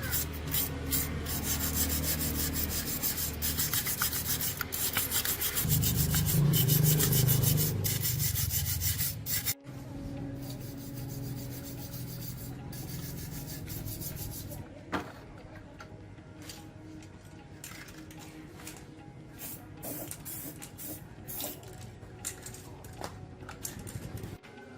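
Rapid abrasive rubbing strokes, strongest in the first third. After a sudden break about a third of the way in, quieter scraping and scattered light clicks follow.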